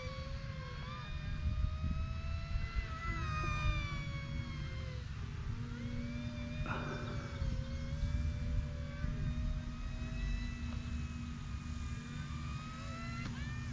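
Electric motor and propeller of a small Volantex P-51D Mustang RC plane whining in flight, the pitch sliding up and down as the plane turns and passes.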